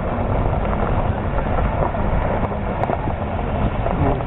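John Deere S670 combine running while harvesting corn: a steady low mechanical rumble.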